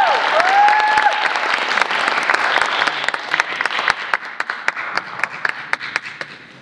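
Audience applause, dense at first, thinning to scattered separate claps about four seconds in and dying away at the end. Near the start, a voice in the crowd gives a brief gliding call.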